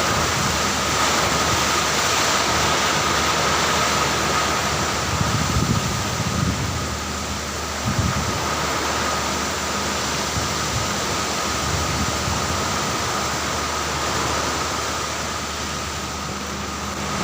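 Heavy rain pouring steadily, with wind gusting now and then. A thin, steady high-pitched tone runs underneath.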